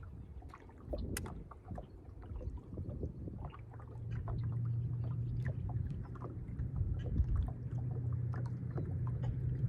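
Boat motor running with a steady low hum that comes in about four seconds in. Scattered light clicks and knocks sound throughout.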